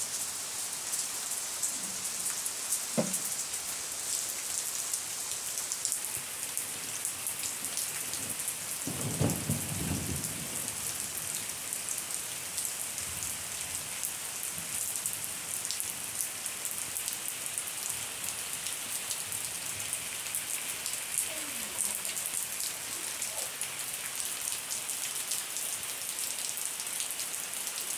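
Light, fine rain falling steadily, a dense patter of drops. There is a brief low rumble about nine seconds in.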